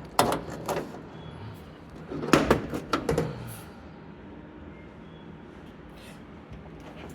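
Metal latches and body panels on a 1935 Ford pickup being worked. There are a few sharp clicks and knocks near the start and a louder clatter of knocks about two and a half seconds in, consistent with the hood being unlatched and opened.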